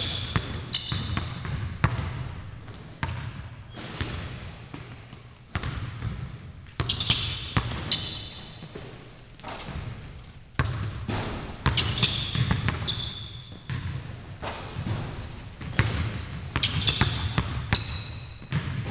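Basketball being dribbled hard on a hardwood gym floor, with sneakers squeaking on the court about four times.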